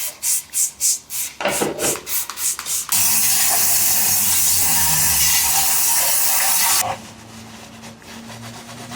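Quick scrubbing strokes, about three a second, as a part is brushed clean. Then a loud, steady spray hiss for about four seconds that cuts off suddenly.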